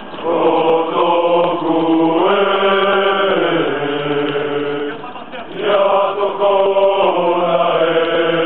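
A group of French marines singing a Polynesian song together as a chant, in long held notes. There are two long phrases with a short breath between them about five seconds in.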